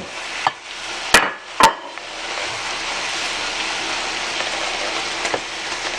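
A few sharp clinks of a utensil against a plate or pan in the first two seconds, then steady sizzling from a hot sauté pan of stroganoff ingredients.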